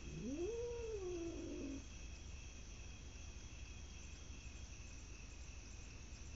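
A cat lets out one long yowl that rises in pitch and then slides slowly down, lasting under two seconds near the start.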